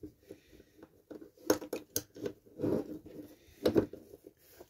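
Screwdriver prying at the parts of a diecast toy truck: a run of small clicks and scrapes, the sharpest about a second and a half in, at about two seconds, and near four seconds.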